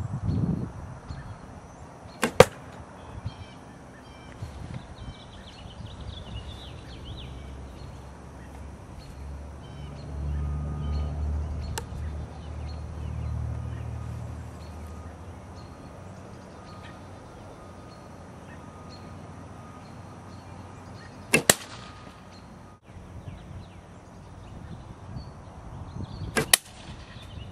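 Arrows striking a laminated linen linothorax cuirass: three sharp impacts, about two seconds in, about 21 seconds in and near the end, the first the loudest.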